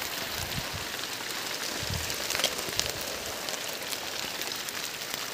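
Rain shower falling steadily: an even hiss dotted with the ticks of individual drops striking leaves.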